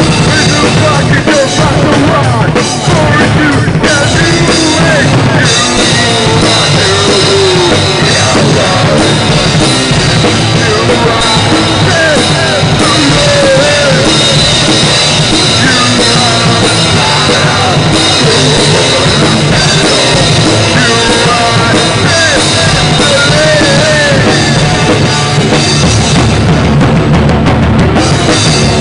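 Drum kit played hard within a loud live metal band, heard from right beside the kit: a dense, unbroken wall of sound with cymbals and bass drum driving through it.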